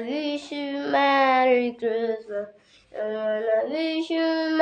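A child singing a tune in long, held notes, with two short breaks partway through.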